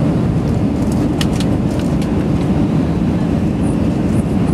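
Airbus A319 cabin noise in the climb after takeoff: a steady low engine drone with rushing airflow, heard from inside the passenger cabin, and a few faint ticks a little over a second in.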